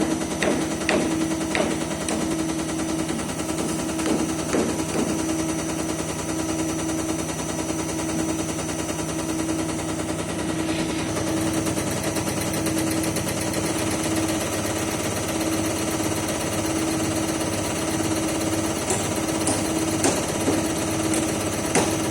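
Diesel injector test bench running a CAT 3412E injector: a steady motor hum under a rapid, fast-repeating clatter of the injector firing. A few sharper clicks come in the first few seconds, the sound turns brighter about halfway through, and soon after a slow low pulsing sets in, about twice a second.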